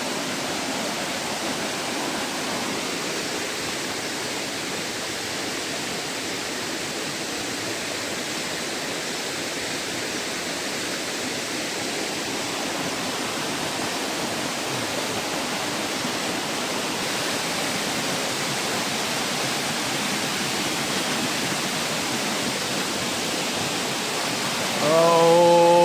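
Steady rush of flowing water from a forest stream and waterfall, slowly growing a little louder. Right at the end comes a short, loud voice-like hum.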